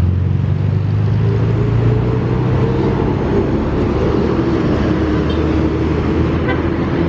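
A road vehicle's engine runs close by with a steady low hum, amid road traffic noise. No horn sounds.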